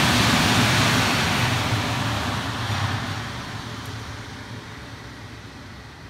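Specialty Equipment car wash dryer blowers running with a loud, steady rush of air, fading away steadily from about two seconds in.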